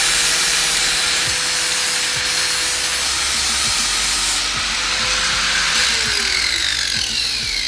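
Power tool grinding on a steel motorcycle drive chain, a steady harsh hiss with a hum under it, taking a link out to shorten the chain. Near the end its pitch falls away as the tool spins down.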